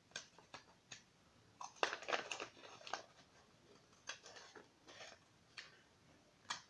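Scissors cutting a sheet of printed paper: short snips in several quick runs, with brief pauses between them.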